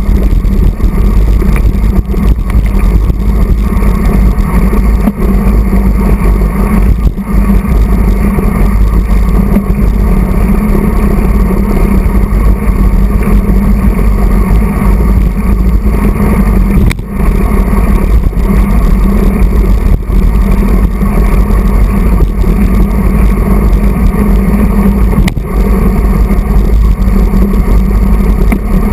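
Wind rushing over a handlebar-mounted camera's microphone as a road bike races in a pack, a loud, steady low rumble.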